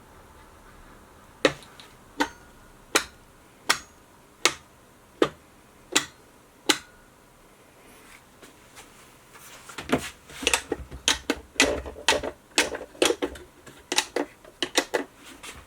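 Electronic locks of puzzle boxes releasing one after another on an 'unlock all' command: seven sharp clicks about three-quarters of a second apart. A few seconds later comes a quicker, irregular run of clacks and knocks.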